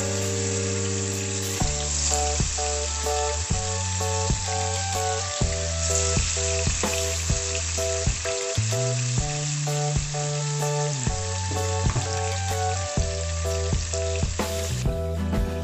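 Tuna steaks frying in garlic butter in a non-stick wok: a steady, dense sizzle that cuts off near the end. Background music with a steady beat plays under it.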